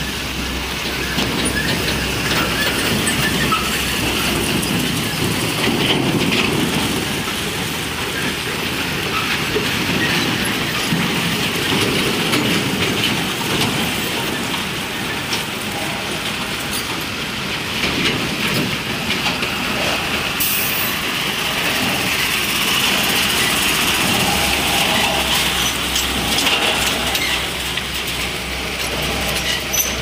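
Steady, fairly loud mix of heavy diesel vehicle and machinery noise with road traffic, with no single event standing out. A brief high hiss comes about twenty seconds in.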